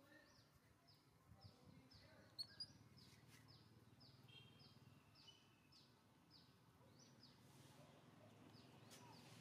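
Faint background of a small bird chirping over and over, about two short high chirps a second, with two sharp clicks a little over two seconds in.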